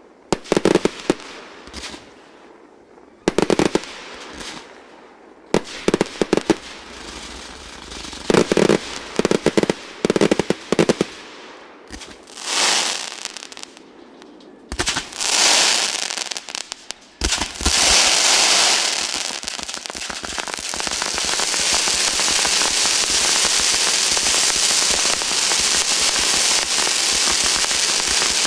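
Fireworks display: shells bursting in separate sharp bangs, with a couple of swelling hisses, then from about seventeen seconds in a continuous dense crackle of many bursts at once.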